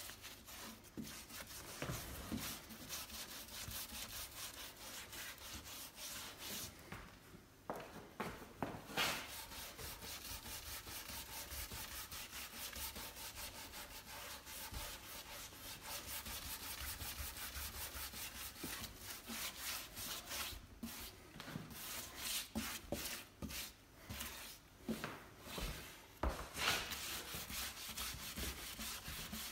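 Rapid back-and-forth scrubbing of a wet macrocarpa bench with a hand scrubber, lifting off the grey weathered surface. The strokes pause briefly about eight seconds in and several times after twenty seconds.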